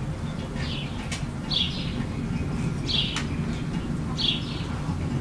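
A bird chirping over and over, a short falling note about every second and a half, over a steady low background rumble. A couple of sharp clinks, typical of forks on plates, are heard about a second in and about three seconds in.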